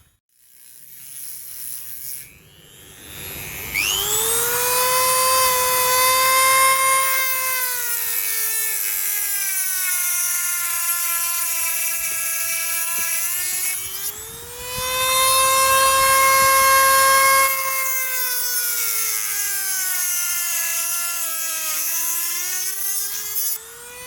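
Dremel rotary tool cutting a glazed ceramic pot. It starts with a high whine about four seconds in, and twice its pitch drops as the bit is pressed into the pot and load slows the motor, then climbs back when the pressure eases.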